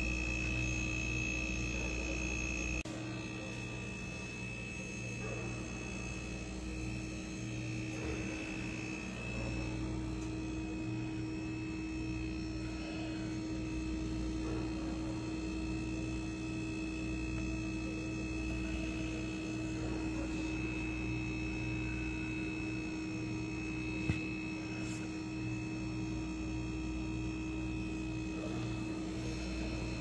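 Refrigerator condenser fan motor running: a steady hum with a constant high-pitched whine over it, and one short click late on.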